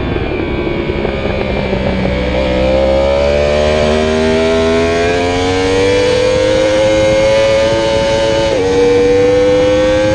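Yamaha YZF-R1 sportbike's inline-four engine at full throttle on track, its pitch rising steadily as it accelerates out of a bend. Near the end a quick upshift drops the pitch suddenly before it climbs again, over wind rush at speed.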